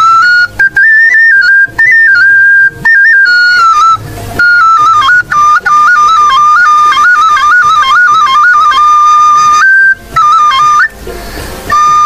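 Background music: a solo flute melody, one line of stepping notes held and ornamented, breaking off briefly twice while a hiss of noise fills the gaps.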